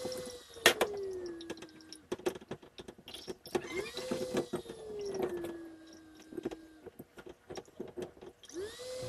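Glass and metal clinks and knocks from a jar and kitchen strainer as garlic-infused aguardiente is strained. Over them, three times, a whine rises quickly, then slides slowly down in pitch over a couple of seconds, each time with a hiss.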